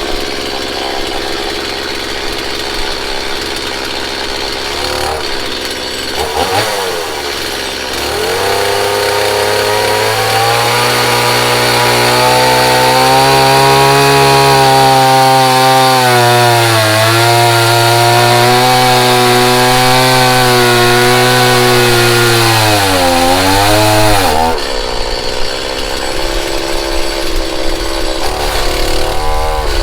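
Stihl MS170 two-stroke chainsaw running and cutting into log timber. From about eight seconds in it holds high revs under load, the pitch sagging briefly twice as the chain bites, and it eases off about six seconds before the end.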